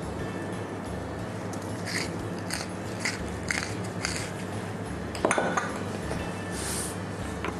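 A pepper mill grinding black pepper over raw chicken pieces in a glass bowl, with short scratchy clicks about twice a second, then a louder clatter a little after five seconds as the mill is set down. Soft background music underneath.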